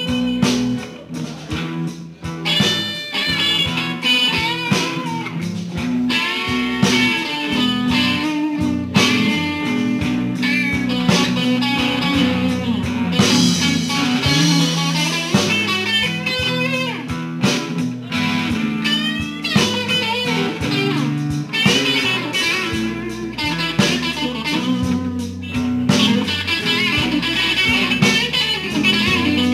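Live band playing a blues-rock jam: an electric guitar plays a melodic line, with some notes bending in pitch, over a steady bass line. The music dips briefly in the first couple of seconds, then carries on at full level.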